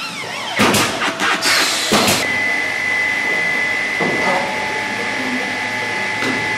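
Workshop noise: about two seconds of irregular handling noise, then a steady high-pitched machine whine.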